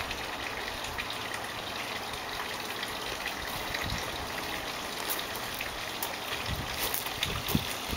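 A steady rushing noise, even and unbroken, with a few faint clicks in the second half.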